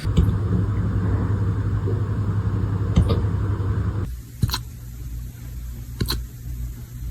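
A puppy hiccuping: short, sharp hics about every second and a half, over a steady low hum that drops away about four seconds in.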